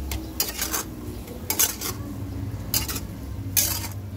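Glass lid being handled and lifted off a stainless steel pan of simmering pork, clinking and scraping against the metal rim in four short bursts, over a steady low hum.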